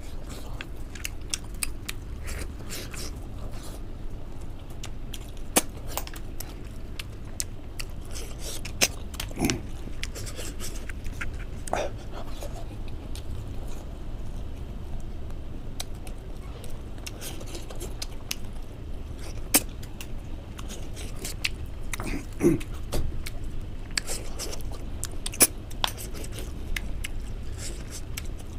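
Close-miked eating sounds: a person chewing hand-fed rice and boiled greens, with wet smacking and many scattered short clicks over a steady low hum.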